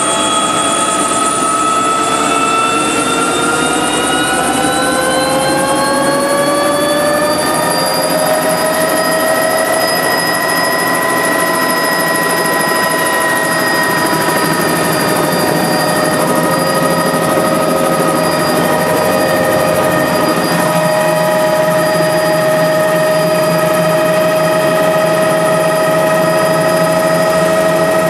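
Helicopter engine and rotor heard from inside the cabin, a loud steady drone with a high whine. Over the first eight seconds or so the pitch rises as the engine comes up to speed on the ground, then it holds steady.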